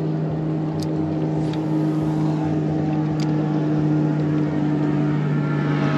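Motorboat engine running at a steady pitch, an even hum throughout.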